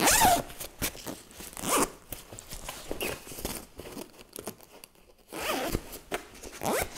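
Zipper on a fabric dog car carrier being pulled closed in several short zips, with a longer one near the end.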